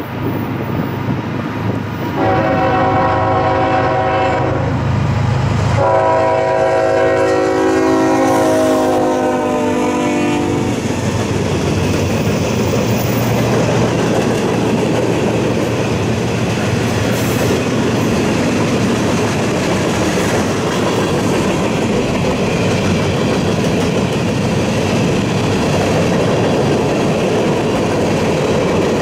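CSX diesel freight locomotive's air horn sounds two long blasts as it approaches. The train of tank cars and covered hoppers then rolls past with a steady rumble of wheels and clickety-clack over the rail joints.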